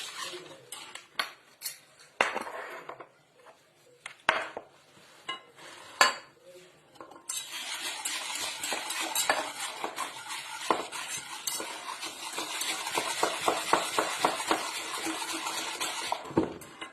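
Milk, cornstarch and chocolate powder being mixed with a utensil in a bowl for a chocolate sauce: scattered clinks and knocks against the bowl at first, then about seven seconds in, fast steady stirring with rapid clinking that stops just before the end.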